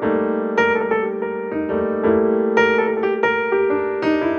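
Background music: a light electric-piano tune, with notes and chords struck roughly twice a second.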